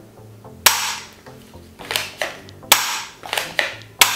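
Toy pistol fired empty by repeated trigger pulls, about seven sharp bangs at irregular intervals, each dying away quickly.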